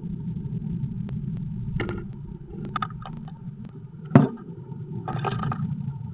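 Great tit landing inside a wooden nest box: one sharp knock about four seconds in, with short scratchy rustles before and after as it moves on the moss nest material. A steady low rumble runs underneath.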